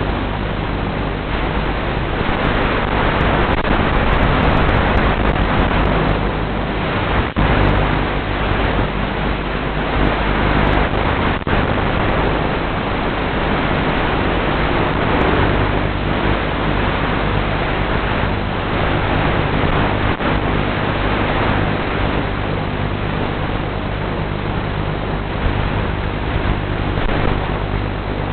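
Steady static hiss with a low hum underneath: the audio channel of an analog 5.8 GHz FPV video feed recorded in the goggles. It drops out for an instant a few times.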